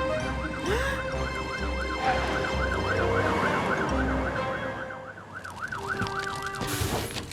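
Cartoon fire engine siren warbling rapidly, about three rises and falls a second, over background music. Under it a low engine rumble fades out about four seconds in.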